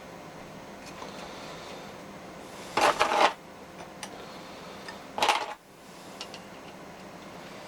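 Metal parts clattering twice, each a quick cluster of clinks and knocks about two and a half seconds apart, over a faint steady hum.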